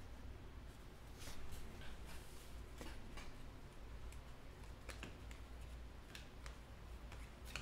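Faint, scattered light clicks and taps, about eight or nine at irregular intervals, over a low steady hum.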